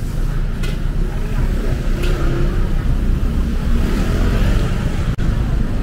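City street traffic: cars and motorbikes driving past close by, a steady low engine rumble that swells for a couple of seconds midway through.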